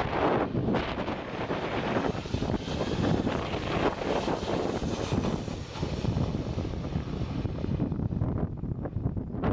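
Airplane engines running loud in strong gusty wind, the roar swelling from about two seconds in and easing off near the end, with wind noise on the microphone.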